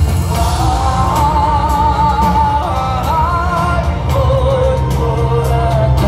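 Live rock band playing through a large outdoor PA, heard from within the crowd: a lead vocal with wide vibrato over heavy bass, electric guitar and drums.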